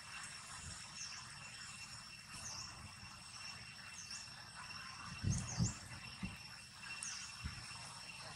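Steady outdoor insect drone from crickets, with short high chirps repeating every second or so and a few low thumps about five seconds in.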